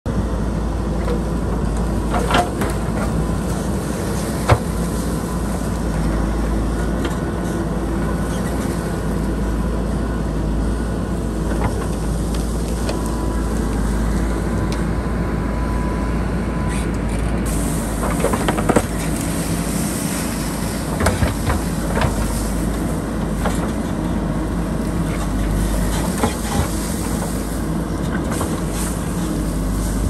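JCB 3DX backhoe loader's diesel engine running steadily under load as the backhoe digs into a dirt and rock bank, with a few sharp knocks and clatters of the bucket and loosened rock.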